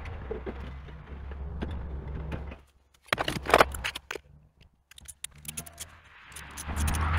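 Hand tools clinking and rattling against metal as a socket wrench works a bolt on a backhoe engine, with a low rumble underneath.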